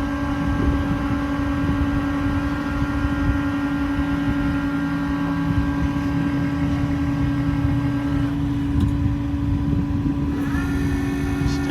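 Hydraulic service crane on a Ford F550 being worked off the PTO, with the 6.7 Power Stroke diesel running: a steady hydraulic pump whine with a higher set of tones that drops out about eight seconds in, and another set that rises in near the end as the next crane function starts.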